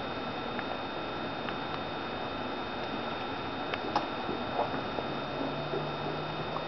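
Faint scattered ticks and soft pattering of a kitten and a puppy pawing at each other on a rug, over a steady background hiss with faint high steady tones; a low hum comes in about five seconds in.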